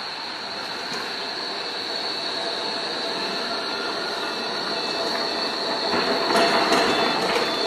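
Articulated low-floor street tram running past on a curved track, its wheels giving a steady high-pitched squeal on the curve. The rumble grows louder as the cars pass close, loudest about six to seven seconds in.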